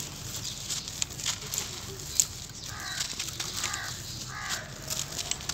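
Dry, dusty earth clods crunched and crumbled by hand over a wire sieve: a steady run of small sharp crunches and crackles, with dust trickling down. Partway through, an animal calls three times in the background, less than a second apart.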